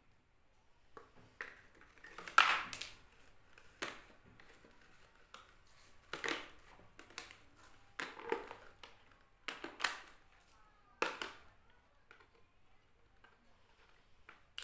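Handling noise from small objects being picked up and put down: a string of short, irregular clicks and rustles, about ten in the first eleven seconds, then quieter.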